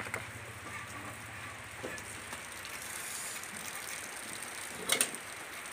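Steady hiss with a few light knocks from handling food on a wooden chopping board, and one sharper click about five seconds in.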